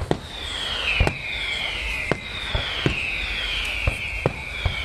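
Fireworks display: shells bursting with sharp bangs at irregular intervals, about every half second to a second. Over them runs a high whistle that falls in pitch, repeated about five times.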